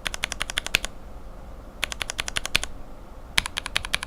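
Lubed linear mechanical keyboard switches (Cherry bottom housings, Revo White stems and springs) pressed rapidly in three quick bursts of clacks, about a second apart: bottom-out and top-out clicks.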